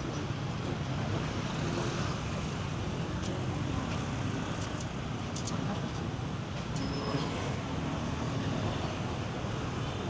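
Busy street-market ambience: a steady wash of road traffic and motorbikes mixed with faint crowd chatter and the odd clink.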